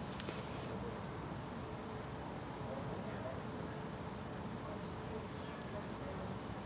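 A cricket chirping steadily: a high, evenly pulsed note repeating about seven times a second, over faint low background hiss.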